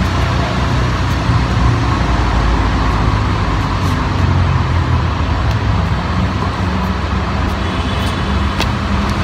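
Steady road traffic rumble with a low engine hum running under it.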